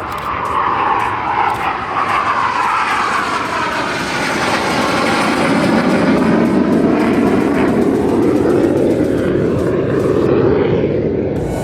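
BAE Hawk 209 jet flying past, its engine whine gliding down in pitch as it passes and the noise growing loudest in the second half.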